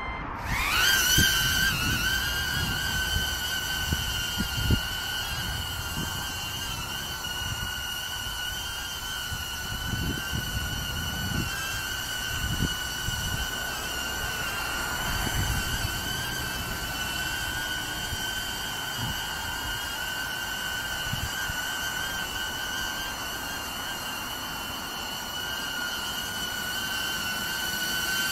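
Hover X1 palm-sized drone's propellers spinning up with a rising whine as it lifts off a hand, then a steady high-pitched whine, wavering slightly, as it hovers and flies.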